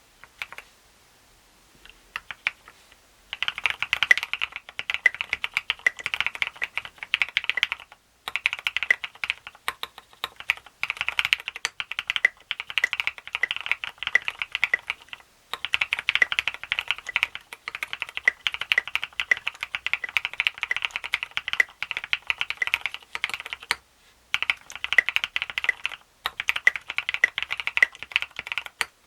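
Typing on a Duck Eagle v3 mechanical keyboard with retooled Cherry MX Black linear switches, a plastic plate, top mount and SA-profile keycaps. A few single keystrokes come first, then fast continuous typing from about three seconds in, broken by a few brief pauses.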